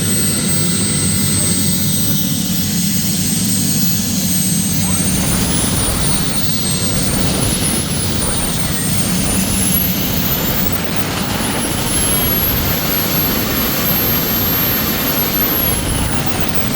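Kerosene gas turbine of a large RC jet model running loud, its high whine steady at first, then wavering up and down and climbing to a higher pitch that holds as the throttle is opened toward full power, before starting to drop near the end.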